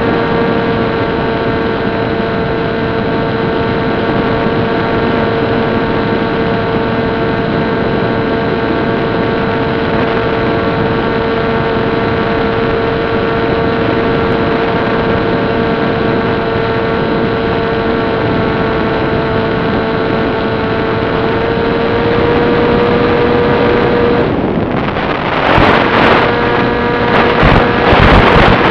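Steady whine of a small electric plane's Turnigy brushless motor and propeller, one even tone with a stack of overtones under a hiss. It is picked up over the plane's analog 5.8 GHz video link. In the last few seconds loud bursts of radio static break in as the link fades.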